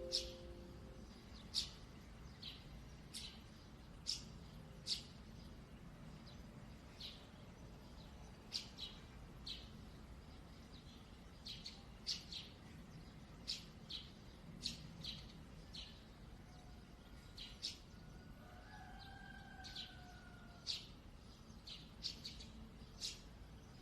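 Small birds chirping: many short, high chirps at irregular intervals over a faint low hum. About three quarters of the way through there is a brief falling call.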